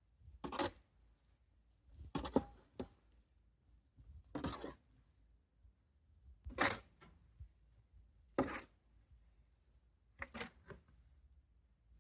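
Deep snow crunching in slow, regular strokes, about one every two seconds, six in all.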